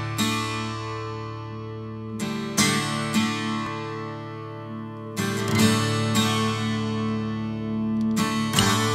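Background music: acoustic guitar chords strummed and left to ring, with a new strum every two to three seconds.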